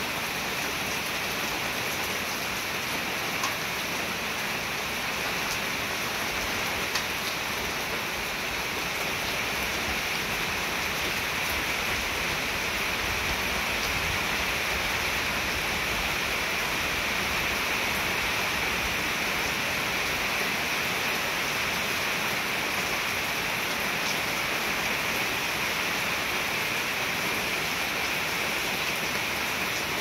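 Steady rain falling, an even hiss that does not let up, with a couple of faint clicks a few seconds in.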